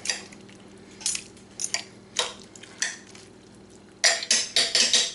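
Metal forks scraping and clinking against the inside of a Crock-Pot slow cooker while shredding cooked pork. Scattered single strokes come first, then a quick run of louder ones in the last second.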